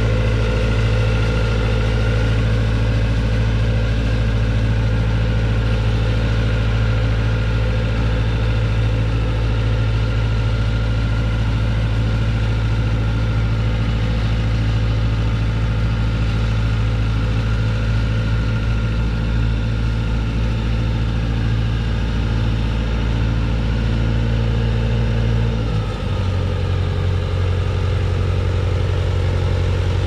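Heavy diesel engines of asphalt paving machinery running steadily. About 26 s in, the engine note drops lower and carries on.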